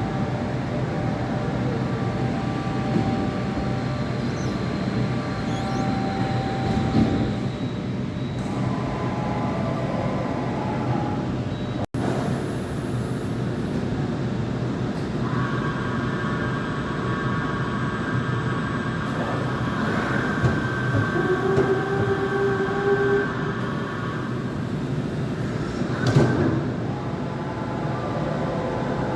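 Okuma MCV 20A II CNC gantry milling machine running: a steady mechanical hum overlaid with whining tones that come and go and change pitch as the drives work. There is a sharp knock near the end.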